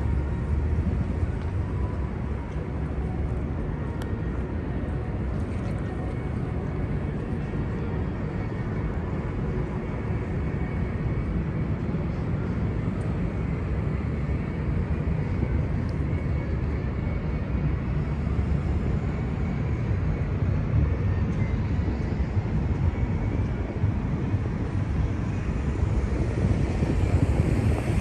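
Steady low rumbling city ambience, like traffic or a busy crowd space heard while walking, with no single event standing out.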